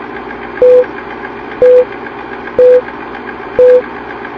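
Film-leader countdown sound effect: a steady projector-like whirr with fast ticking, and a short, loud beep once a second, four times.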